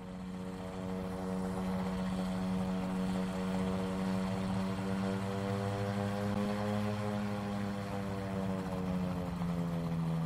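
Propeller aircraft's piston engine running steadily, its pitch rising a little past the middle and easing back down near the end.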